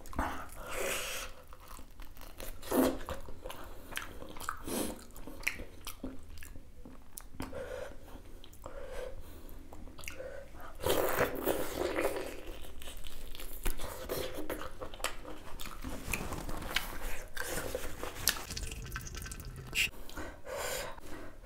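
A person chewing and biting cooked beef innards, with irregular sharp mouth clicks and short noisy bursts throughout.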